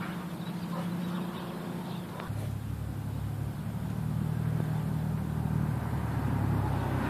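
Steady low hum of a motor or engine running. It grows louder and deeper about two seconds in, then holds steady.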